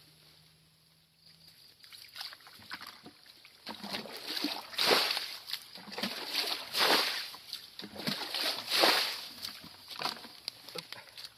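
Water splashing and sloshing in repeated heavy scoops, the biggest about every two seconds with smaller splashes between, starting a few seconds in: shallow water being bailed out by hand to get at stranded fish.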